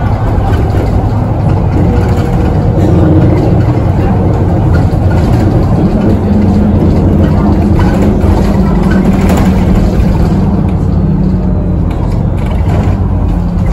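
Engine and drivetrain of a VDL SB200 single-deck bus with a Voith automatic gearbox, heard from inside the cabin while it drives. There is a steady low rumble with a held engine note from about a third of the way in until near the end.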